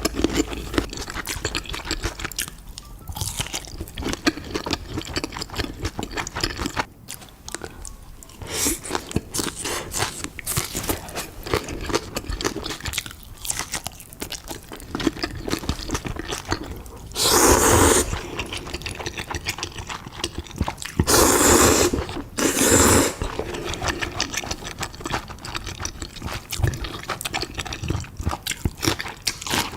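Close-miked eating: a person chewing and biting into crunchy food, with a steady run of crunches and wet mouth clicks. A little past halfway come three louder, longer bursts of crunching.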